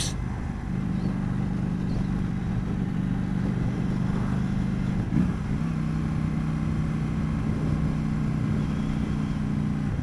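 2019 KTM 790 Duke's parallel-twin engine through an aftermarket Mivv Delta exhaust, running at a steady cruise, heard from inside the rider's helmet with wind rush. About five seconds in the note briefly breaks and settles at a slightly different pitch.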